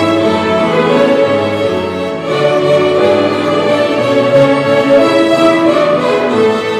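A large group of young violinists playing a tune together with piano accompaniment, in sustained bowed notes with a short breath between phrases about two seconds in.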